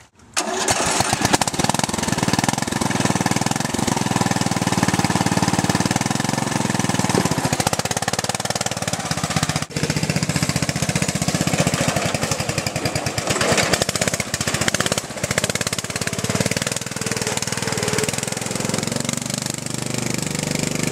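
Briggs & Stratton 16.5 HP I/C engine of an off-road Craftsman LT1000 lawn tractor running hard under load as the tractor drives through mud, its note rising and falling.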